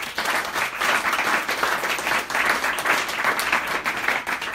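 Audience applauding, starting abruptly and keeping up steadily.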